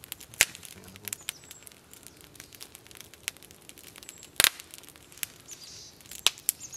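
Campfire crackling with sharp irregular pops, the loudest about four and a half seconds in, under the soft tearing of feathers being plucked by hand from a grouse. A small bird chirps faintly a couple of times near the end.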